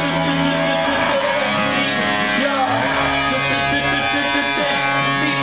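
Loud live concert music from an amplified band, recorded from within the audience.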